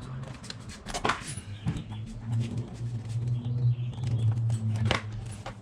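Two sharp clicks from hand-tool work on the motorcycle's side cover, about a second in and again near the end, over a low steady hum.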